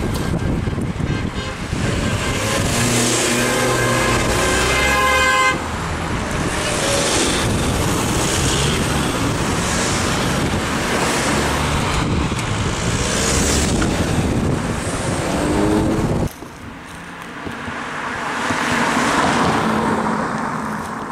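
Race convoy cars passing close one after another, each a rush of engine and tyre noise, with a car horn held for the first few seconds that cuts off abruptly. After a sudden drop, a single vehicle passes farther off, its sound rising and then falling away.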